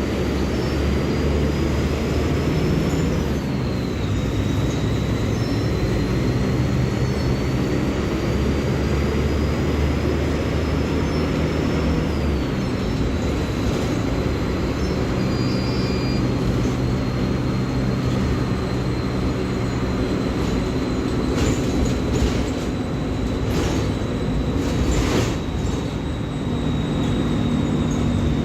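Mercedes-Benz OF-1724L Bluetec 5 bus engine running under way, with a high whine that climbs and drops back twice, then holds steady. Several short knocks or rattles come in the last third.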